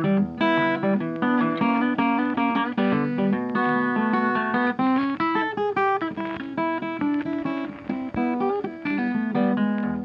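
Background music on plucked acoustic guitar, a quick run of picked and strummed notes.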